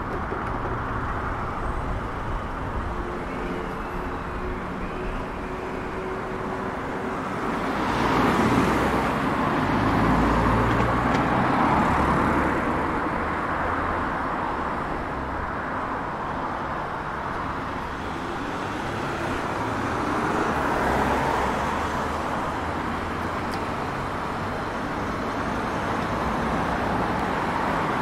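City street traffic: cars driving past, with two louder passes, one about a third of the way through and another later on.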